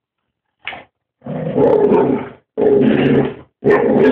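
A dog vocalizing close to the microphone: a brief sound, then three long, drawn-out, low-pitched calls of about a second each.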